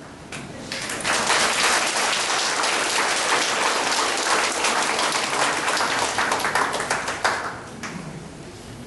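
A group of people clapping: applause swells about a second in, holds for several seconds, and dies away near the end.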